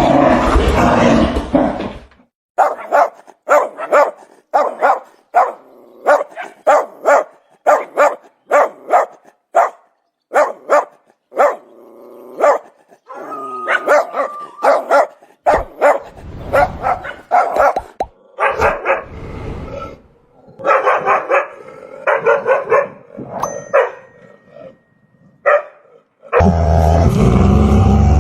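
Dog barking: a long run of short, evenly spaced barks, about two a second. Deeper, heavier barks follow about halfway through, then another quick run of barks. A loud, continuous dog sound fills the first two seconds and starts again near the end.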